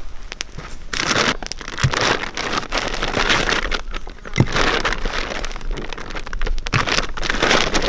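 Campfire crackling, with many scattered sharp pops and swells of noise between them.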